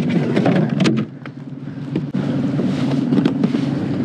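A steady engine-like hum, mixed with light clicks and knocks of fishing gear being handled. The hum cuts out about a second in and comes back abruptly about two seconds in.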